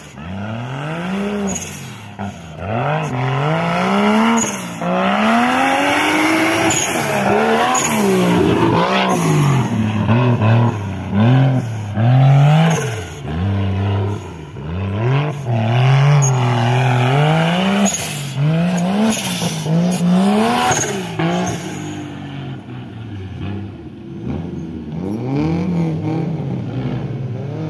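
Off-road buggy's engine revving up and falling back over and over as it climbs over dirt mounds on a muddy course. It is somewhat quieter in the last few seconds.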